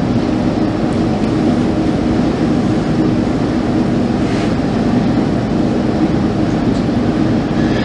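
Steady low droning hum with a constant rushing noise over it, unbroken throughout, with a faint tick about four and a half seconds in.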